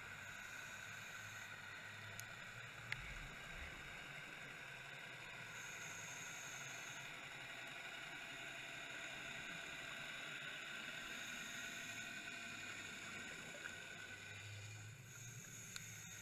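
Steady underwater hiss and low hum picked up through a diving camera's housing, with faint steady tones and a faint high hiss that comes and goes every few seconds. One sharp click about three seconds in.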